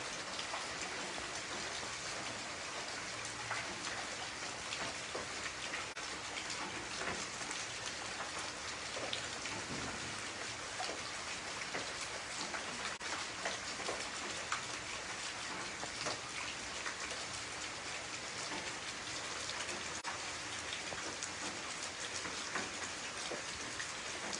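Heavy rain falling steadily on a wet concrete pavement, with many individual drops splashing in the surface water.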